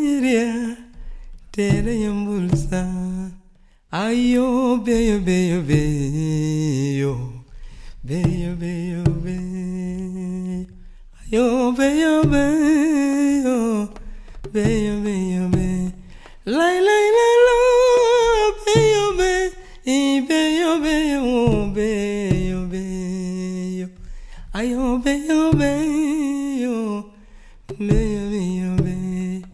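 A single voice singing a wordless melody without accompaniment, in phrases of two to three seconds that rise and fall in pitch, some notes held steady, with short pauses between.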